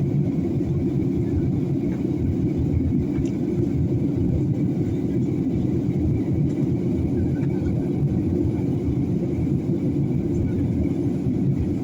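Steady airliner cabin noise in flight: a dense low rush of engines and airflow, with a faint thin whine above it.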